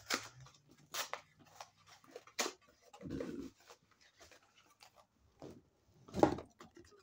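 Hands handling small plastic toys and packaging at close range: scattered light clicks and taps, with a louder short whoosh a little after six seconds.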